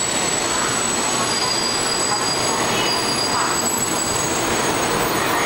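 Taiwan High Speed Rail train pulling into the station, its cars running past the platform with a steady rushing of wheels and air and a thin high whine over it.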